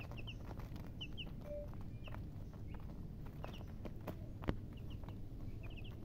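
Baby chicks peeping: short high peeps in quick pairs and triplets, over a steady low rumble. A single sharp knock about four and a half seconds in.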